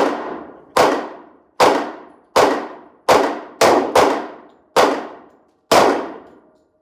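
Nine gunshots in an uneven string, most about three quarters of a second apart with a quicker pair near the middle, each followed by a short reverberant tail.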